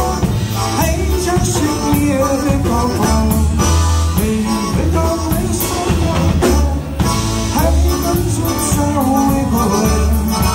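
Live polka band playing a Góral-style polka, led by fiddle and vocals over electric bass, drums and accordion, with a steady pulsing bass beat.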